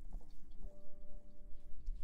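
Soft background music: a few held notes come in about half a second in, over a low steady rumble and faint ticks.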